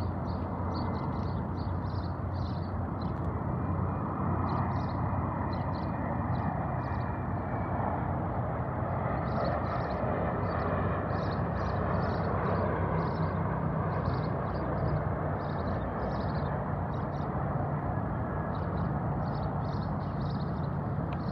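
Distant diesel locomotives running with a steady low drone under a wash of yard and outdoor noise. High, short chirps come in runs throughout.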